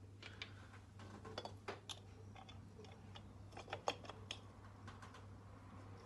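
Scattered light clicks and taps of small metal parts being handled as a cast aluminium wall lantern's fittings and brass screws are put on by hand. The sharpest tap comes a little before four seconds in.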